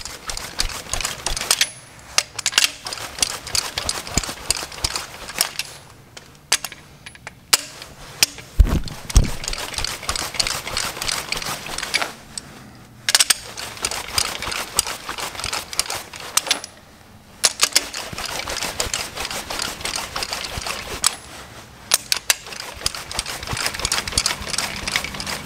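Socket ratchet clicking in quick runs as main bearing cap bolts are backed out one after another, with short pauses between bolts and a thud about nine seconds in. The bolts unthread smoothly and evenly, a sign the threads are in good shape.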